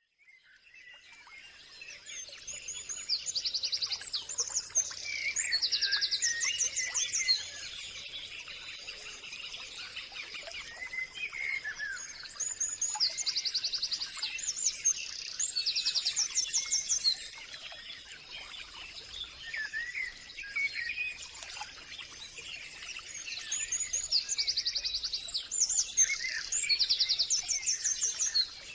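Songbirds singing: a phrase of fast trills and chirps comes back three times, about every ten seconds, over a faint steady high tone. The sound fades in at the start.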